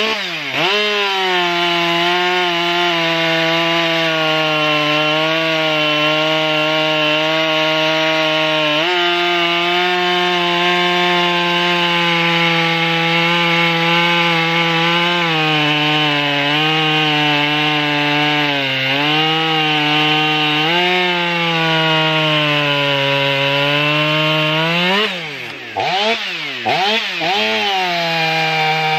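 Two-stroke chainsaw engines at full throttle cutting through a dried red oak log. For about 25 s the Husqvarna 572 XP, an autotune saw, holds a steady high note that sags and recovers as the chain loads in the wood. Then the note breaks up into a few quick revs and drops, and near the end the fuel-injected Stihl 500i runs steadily in its own cut.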